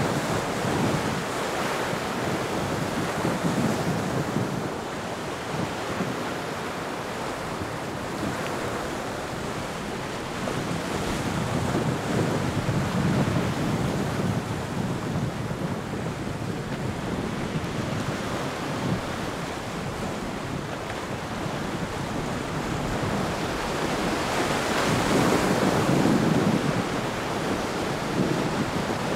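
Ocean surf washing and breaking in rough water, with wind buffeting the microphone. It swells louder about halfway through and again near the end.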